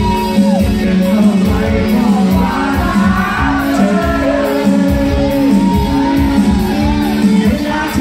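Loud amplified pop song: a man sings into a microphone over backing music with a steady beat.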